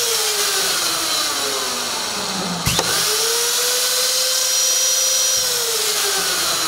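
Router motor of a uPVC profile routing machine whining. Its pitch slides down over the first two seconds or so, a sharp click comes near the middle, then it climbs quickly back, holds steady and slides down again near the end.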